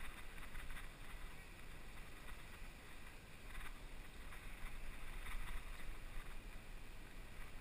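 Faint outdoor ambience at the water's edge: a low wind rumble on the microphone with quiet water sounds at the rocky bank.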